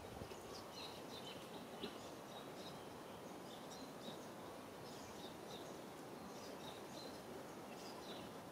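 Steady outdoor background noise with many short, high chirps of small birds scattered throughout.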